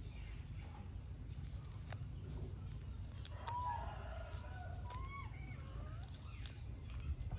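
A few short squeaky animal calls, each rising and then falling in pitch, mostly around the middle, over a steady low rumble.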